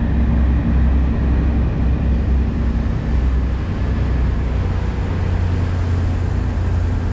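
Large fishing party boat's engines running steadily under way, a constant low drone, with wind and the rush of the churning wake.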